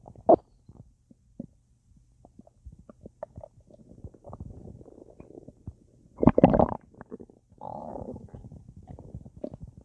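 Full stomach gurgling and bubbling with trapped gas after a large meal and a drink: scattered small pops and gurgles, a sharp gurgle right at the start, a loud bubbly gurgle a little past the middle, then a longer rumble.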